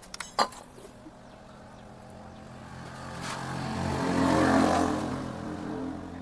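A motor vehicle's engine passing by, swelling to a peak and fading away over a few seconds, after a single sharp click about half a second in.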